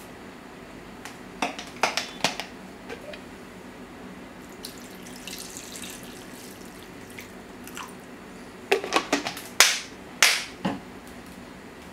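Water poured from a plastic jug into a clay pot over napa cabbage leaves, a short splashing stream in the middle. Sharp clicks and knocks before it and after it, loudest in a quick cluster near the end.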